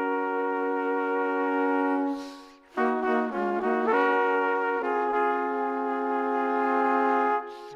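Background music: a melody of long held notes on one bright, pitched line. It drops out briefly about two and a half seconds in, then resumes with a note held for over two seconds near the end.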